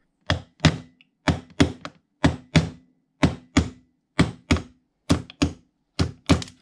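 Hammer striking a pin punch to drive the roll pin out of a distributor shaft's upper stop collar. About fifteen sharp metal-on-metal blows, mostly in pairs, roughly one pair a second, each with a short ring.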